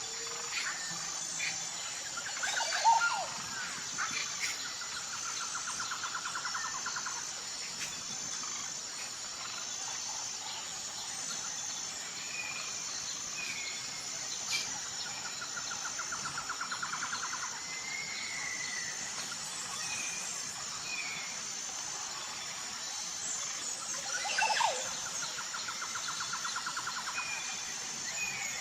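Indian peafowl (peacock) giving two loud, short calls, about three seconds in and again near the end, over a steady high-pitched insect drone. Runs of rapid repeated notes and scattered bird chirps come in between.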